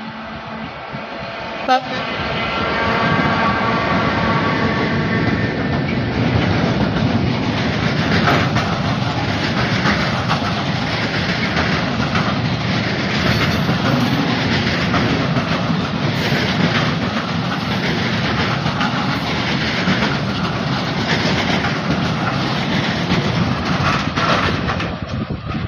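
Electric freight train passing close by: the locomotive goes past in the first seconds, then a long string of empty flat wagons rolls by with the clickety-clack of wheels over rail joints.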